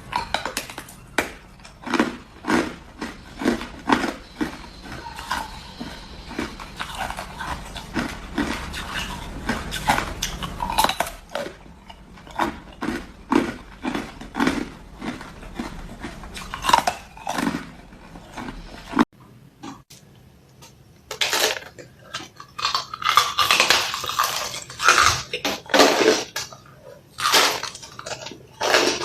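Close-up biting and crunching of hard frozen Coke ice, a quick run of sharp cracks and crunches. It goes quiet for a moment about two thirds of the way through, then the crunching comes back louder and brighter.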